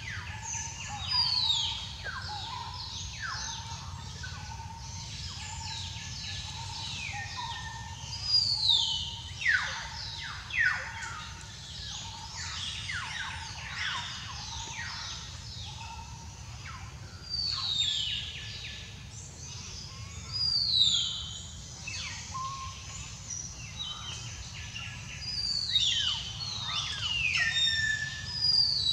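Wild birds calling in the canopy: many overlapping whistles, each sliding steeply down in pitch, in loose bursts with a few louder clusters, over a steady low rumble of background noise.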